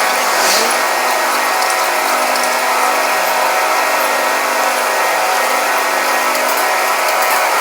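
Loud, steady whirring of heavy machinery running, with several steady tones held throughout and no change in pace.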